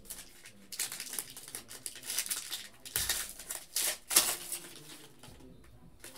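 Foil trading-card pack wrapper of a 2020 Panini Gold Standard pack crinkling and tearing open by hand, in a run of crackly bursts that is loudest about four seconds in and dies down near the end.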